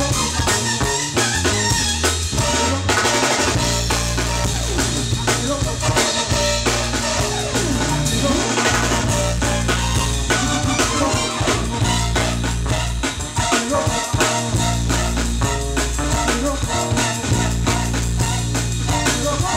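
Live jazz band playing, the drum kit busy and prominent over held bass notes.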